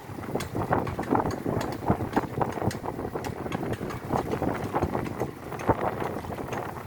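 Wind buffeting the microphone on a moving mountain bike, with irregular rattling clicks and knocks from riding over the road surface.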